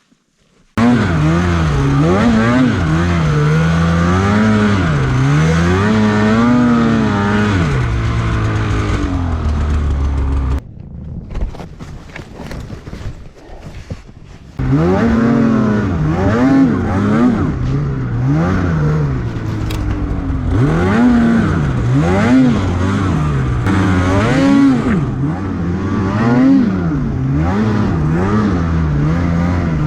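Snowmobile engine revving up and down again and again under throttle, cutting in abruptly about a second in. It falls quieter for about four seconds in the middle, then revs hard again.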